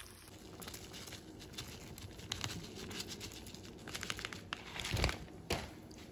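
Crinkling and rustling with scattered light clicks, and a couple of louder knocks about five seconds in.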